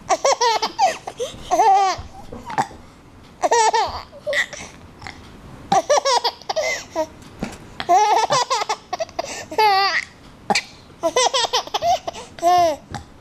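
A 5-month-old baby laughing in about half a dozen bouts of high, wavering laughs with short pauses between them.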